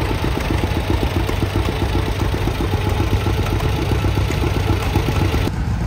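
Vintage tractor engine running with a quick, even beat of firing pulses. The sound cuts off abruptly near the end.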